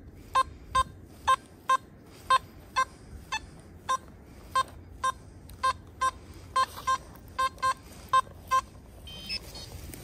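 Nokta Makro Simplex+ metal detector giving short target beeps of one mid pitch, about two a second, as the coil is passed back and forth over a target that reads in the mid-50s. The beeps stop near the end.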